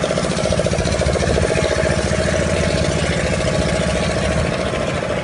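Small boat engine running steadily, with a fast, even pulse.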